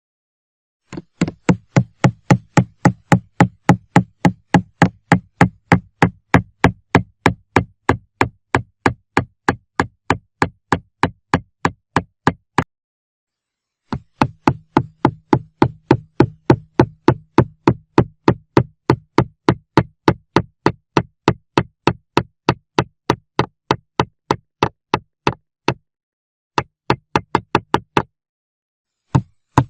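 Hammer blows struck in steady runs of about three a second, each a sharp knock with a dull low thud; the runs break off briefly about twelve seconds in and again near the end.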